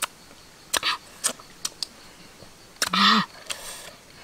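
A few scattered sharp clicks or taps, and a short voiced sound with a falling pitch about three seconds in.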